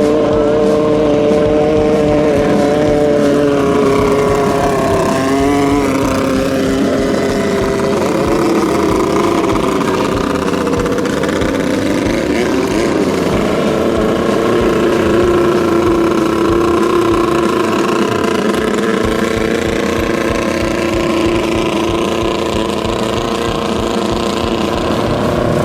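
Engines of Jet 650 class racing speedboats running hard, several engine tones at once that glide up and down in pitch as the boats race past, one dropping in pitch about five seconds in.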